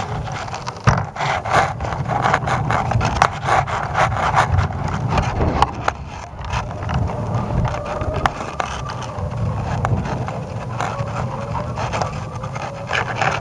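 Wind buffeting the microphone of a camera payload swinging on a balloon tether, with irregular rubbing, scraping and clicking from the payload housing and its lines.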